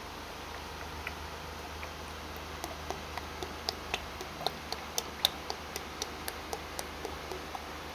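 Honda HCF-2 CVT fluid being poured from a plastic bottle into a funnel, with a run of sharp, irregular clicks a few times a second starting a couple of seconds in, over a low steady hum.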